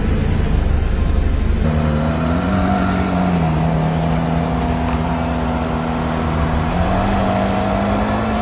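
Ferrari 458 V8 engine running at low revs as the car pulls away, its note rising and falling gently. For about the first second and a half there is a deeper, heavier rumble, then the sound changes abruptly to the clearer engine note.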